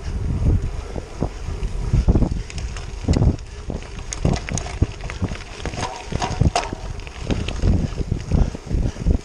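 Wind buffeting the microphone of a bicycle-mounted camera while riding, with scattered clicks and rattles from the tyres and bike on a wet gravel road, thickest around the middle.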